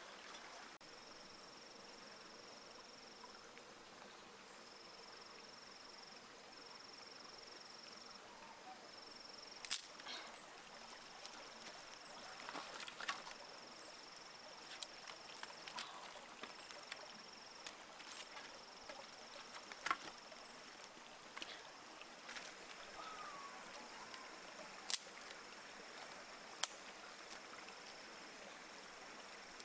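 Dry wooden sticks knocking and cracking against each other and the stones as firewood is handled and laid: scattered sharp clicks every few seconds. Under them runs a steady high insect buzz that breaks off briefly now and then, with a faint stream in the background.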